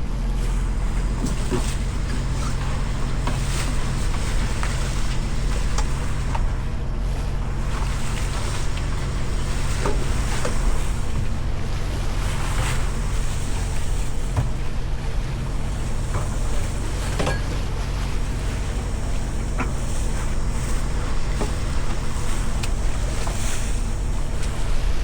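Small fishing boat's engine running steadily as a low hum, under wind and water noise, with scattered small knocks and clicks.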